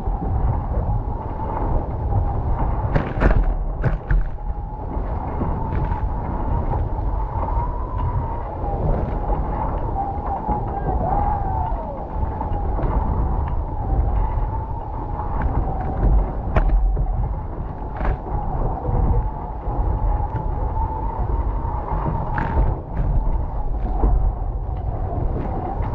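Nacra 15 catamaran sailing at speed: a steady rush of wind on the microphone and hulls cutting through water, with a low rumble. Spray slaps against the camera now and then. A thin whistling tone wavers slightly in pitch throughout.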